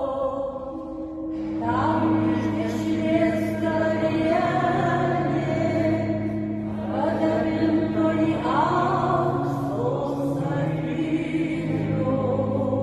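Singing of a psalm at Mass, with several voices over steady, held low chords that change every few seconds, echoing in a church.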